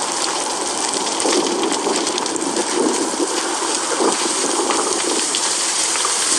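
Wildfire burning: a steady rushing noise thick with fine crackling.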